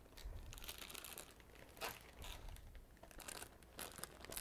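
Plastic bags of craft snow and glitter crinkling as they are handled, in short, faint bursts of rustling.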